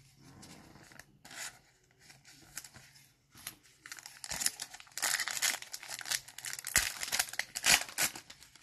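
A Panini Prizm basketball card pack being torn open by hand, its wrapper crinkling in a dense run from about halfway through, after a few light handling clicks.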